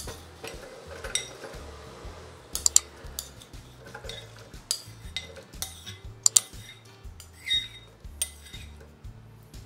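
A metal spoon clinking and scraping against a ceramic bowl as sliced okra is pushed out into an air fryer basket, in a string of irregular sharp clinks. The loudest clinks come about two and a half seconds in and again about six seconds in.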